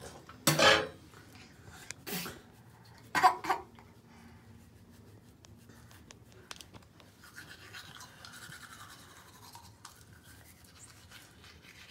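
Manual toothbrushes scrubbing children's teeth and tongue, a soft, irregular brushing rasp. A few short, loud noises break in during the first few seconds.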